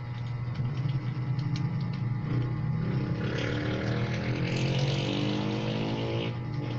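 A motor vehicle's engine passes by, climbing slightly in pitch for about four seconds before fading, over a steady low hum. Faint keyboard key clicks sound early on.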